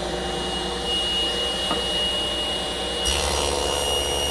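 Table saw running with a steady high whine. About three seconds in the sound grows fuller and brighter, with more low rumble underneath.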